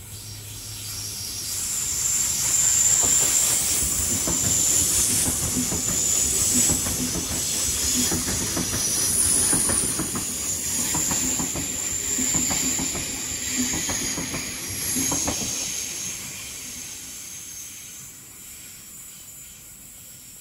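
Sydney Trains Tangara electric train running past close along the platform: wheels clicking over the rail joints under a high-pitched whine and hiss. It builds over the first couple of seconds and fades over the last few.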